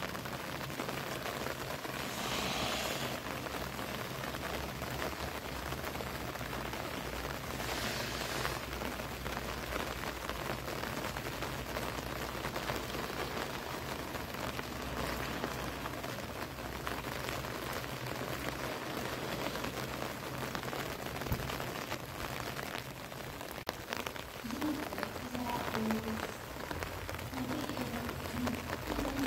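Steady rain, a continuous even hiss of rain falling on wet pavement and ground. The hiss swells briefly about two seconds in and again about eight seconds in.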